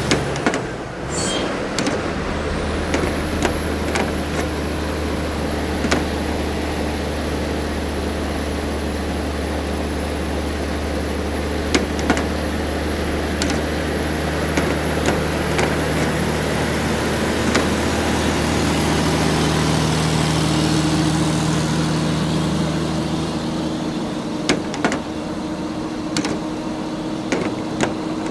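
Radio-controlled toy excavator and dump truck running in sand: a steady mechanical drone with a thin high whine, broken by scattered sharp clicks.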